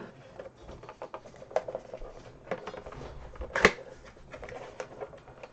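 Handling and opening a boxed toy figure: scattered small clicks and rustles of packaging, with one sharp, louder click about three and a half seconds in.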